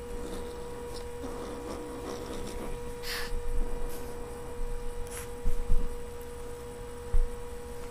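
Siamese kitten wrestling and biting at a hand, with short breathy huffs about three and five seconds in, scuffling on the rug and a few low bumps against the microphone, over a steady electrical hum.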